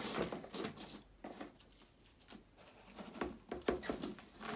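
Hand spreading compost in a plastic storage drawer, the soil rustling and scraping in irregular strokes. Near the end more compost is tipped in from a plastic pot and patters down onto it.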